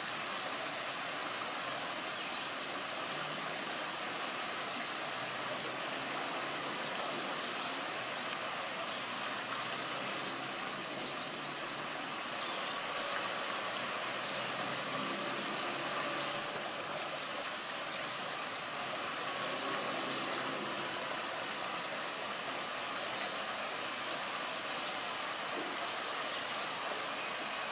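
Water spilling steadily over a low stone weir into a shallow stream, an even rushing sound with no breaks.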